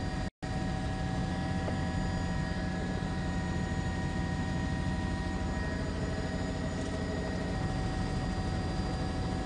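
Steady drone of a news helicopter's engine and rotors heard from on board, with a set of constant whining tones over a low rumble. The sound cuts out for an instant just after the start.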